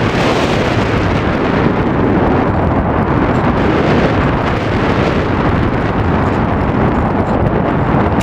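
Heavy wind rushing and buffeting against the microphone of a camera in flight, a loud steady roar with no engine tone in it.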